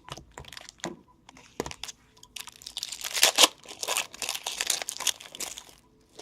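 A foil trading-card pack wrapper being crinkled and torn open: a dense run of crackling lasting about three seconds, starting a little over two seconds in. Before it come a few soft ticks of cards being handled.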